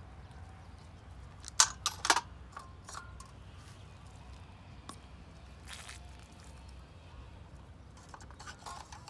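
A few sharp knocks, two loud ones about a second and a half and two seconds in, then scattered lighter clicks over a low steady hum.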